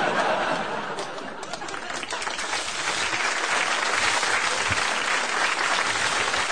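Studio audience applauding: the clapping builds about two seconds in and then holds steady.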